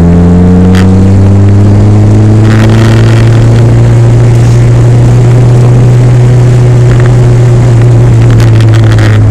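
1999 Mitsubishi Eclipse GSX's turbocharged four-cylinder engine running hard under load, its pitch climbing slowly over the first few seconds and then holding nearly steady. The car is held in one gear because the gearshift lever has snapped off, leaving it stuck in fourth.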